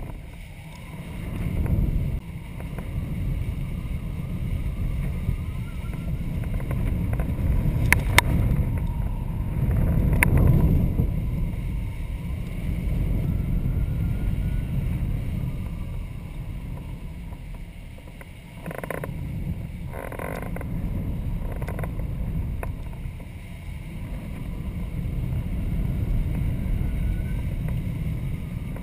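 Wind buffeting the microphone of a camera flying on a kite: a steady low rumble that swells and fades, with a few sharp clicks about a third of the way in.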